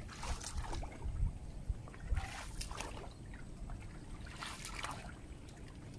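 Paddle strokes in river water: a plastic-bladed paddle dipping and pulling through the water, a splashing swish about every two seconds.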